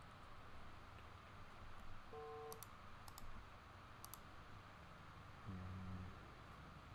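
A few faint clicks from a computer mouse and keyboard, in small groups about a second apart, over quiet room hiss.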